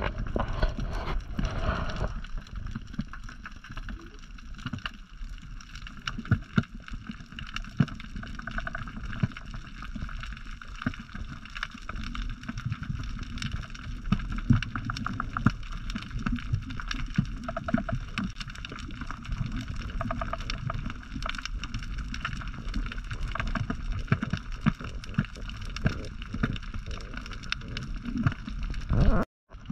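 Muffled underwater sound picked up by a diving camera: a steady low rumble of moving water with scattered clicks and crackles. It cuts out for a moment near the end.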